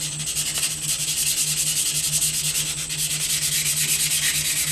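150-grit sandpaper rubbed by hand back and forth along a steel sword blade, in quick, even strokes. This is the first sandpaper stage of hand-polishing the blade, after the stones.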